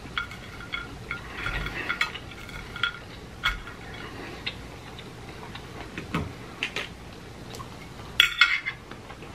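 Metal fork clicking and scraping on a plate as french fries are speared, with close-up chewing and mouth sounds of eating. The clicks come at irregular moments, with a louder cluster of sounds about eight seconds in as a fry goes into the mouth.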